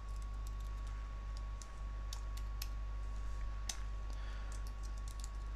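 Computer keyboard typing: irregular, separate key clicks as a password is entered, a few keys a second with short pauses, over a steady low hum.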